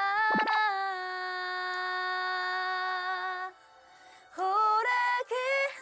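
A young woman singing a vocal exercise: one long note held steady for about three and a half seconds, then after a short pause a quick run of notes stepping upward.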